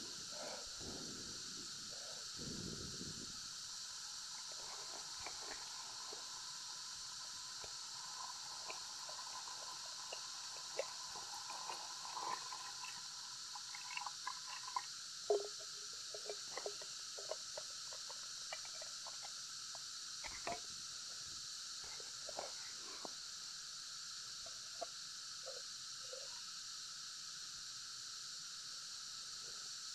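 Sardines in tomato sauce simmering in an aluminium mess tin, popping and bubbling in small scattered bursts, with water poured in around the middle. A steady high background hiss runs underneath.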